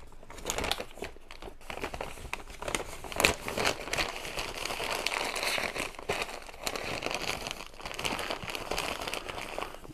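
Brown paper bags being handled and opened, a continuous crackly rustling and crinkling with a louder crunch about three seconds in.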